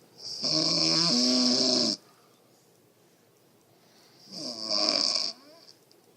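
A woman snoring: two loud, pitched, rasping snores, the first about a second and a half long just after the start, the second about a second long a little past halfway.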